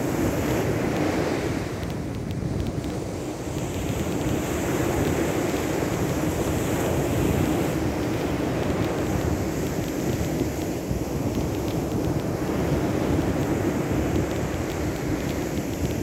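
Sea surf washing steadily, with wind rushing across the microphone.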